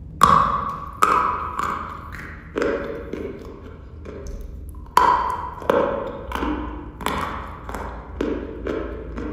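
A chunk of white chalk being bitten off, with a sharp snap, and then chewed in dry crunches roughly every half second to second. A second hard bite comes about five seconds in.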